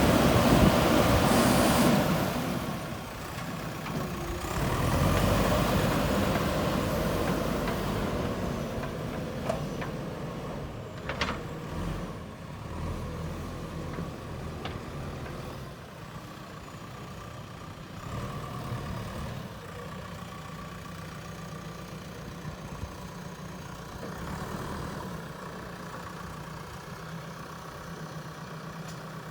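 JCB 3DX backhoe loader's diesel engine running. It is loud for the first two seconds, then settles to a steadier, quieter idle with a steady low hum. A single sharp click comes about eleven seconds in.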